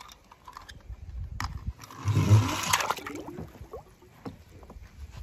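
A toy car splashing into a pool of water about two seconds in, with a short bubbling gurgle after it; light plastic clicks and knocks before the splash.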